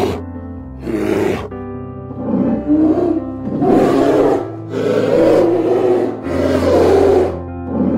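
A large wild animal calling in a series of short, harsh, breathy calls, roughly one a second, over steady background music.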